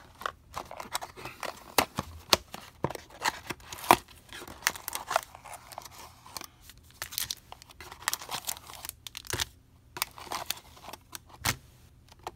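Small cardboard trading-card repack boxes being opened and handled by hand: flaps bent and pulled open and contents slid out, with papery crinkling and many sharp clicks and taps.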